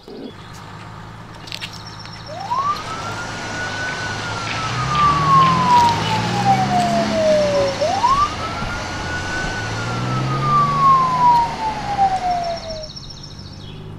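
Wailing siren, as for an ambulance, going through two slow cycles: each rises quickly, then falls slowly over about five seconds. Under it a low engine-like rumble swells and fades twice.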